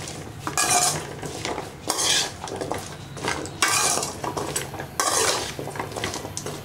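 Metal spatula scraping and knocking against an aluminium kadai as raw pumpkin cubes are stirred into the tempered onions and spices, in uneven strokes with short pauses between them.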